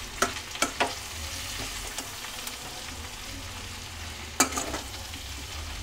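Metal spoon stirring flat beans and potato pieces with spice powders in a steel kadhai of hot mustard oil: a low frying sizzle under a few sharp clinks and scrapes of the spoon against the pan, three in the first second and a louder one about four and a half seconds in.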